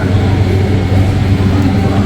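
Steady low hum of a large store's background noise, with faint voices in it.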